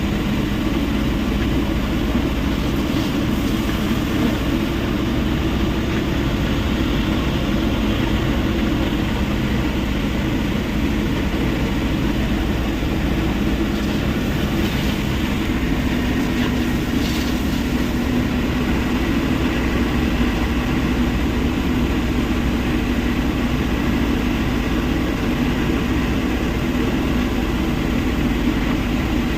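Steady, loud din of heavy machinery running at a rock-crushing plant: diesel earthmoving equipment and the crusher together. A low hum grows stronger about halfway through.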